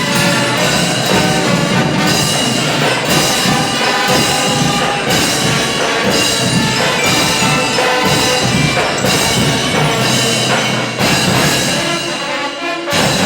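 Music with a steady beat, about one beat a second, getting a little quieter near the end.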